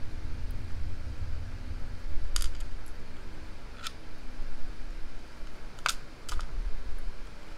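Small metal clicks from a padlock being taken apart by hand: four sharp ticks spread over several seconds, some with a short ring, over low handling rumble.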